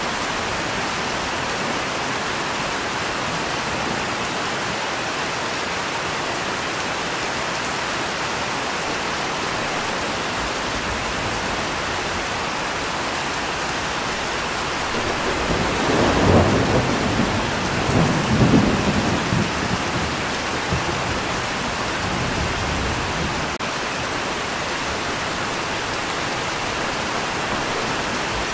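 Steady rain falling, with a roll of thunder about halfway through that swells twice over several seconds before fading back under the rain.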